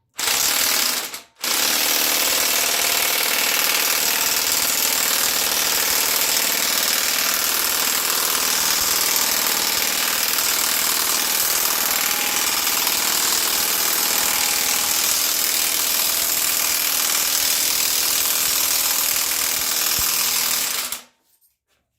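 Impact wrench hammering on the forcing screw of a harmonic balancer puller on a small-block Chevy 350: two short bursts, then one long run of about twenty seconds that stops abruptly. The balancer is stuck and does not come off.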